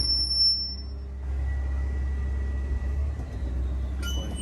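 Cat M316C wheeled excavator's diesel engine running steadily, with a faint thin whine over it; the sound picks up slightly about a second in.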